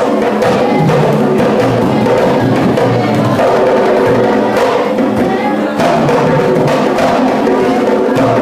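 Kiganda dance music led by drums, with repeated drum strokes over a sustained melodic line.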